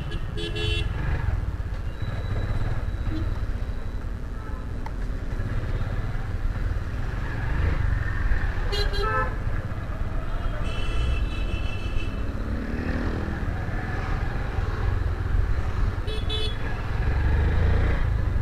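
Motorcycle riding slowly in traffic with a steady low rumble, and vehicle horns honking several times: short beeps near the start and about 9 seconds in, a longer honk about 11 seconds in, and another short beep about 16 seconds in.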